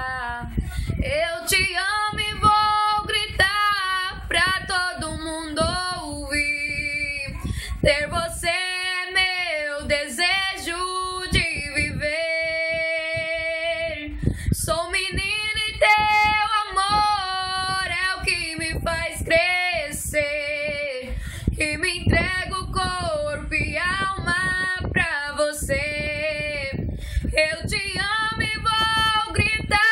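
A young woman singing solo and unaccompanied, a slow romantic ballad with long held notes that slide between pitches.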